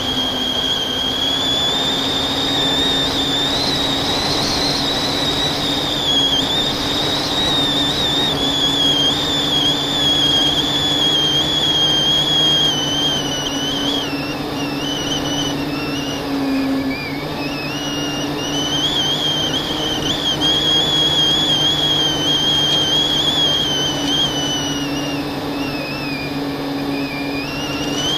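FPV drone's brushless motors and propellers whining in flight, the high pitch rising and falling with the throttle over a steady rushing noise.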